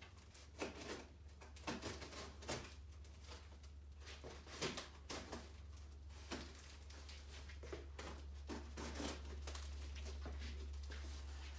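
Cardboard box and packaging being handled and opened: scattered rustles, scrapes and light knocks, over a steady low hum.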